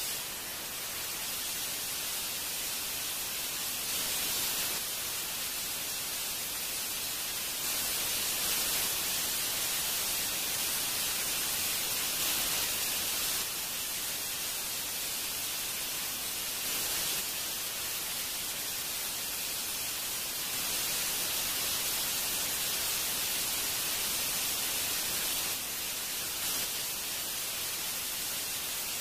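Steady hiss like static, strongest in the high range, that steps a little louder and softer every few seconds.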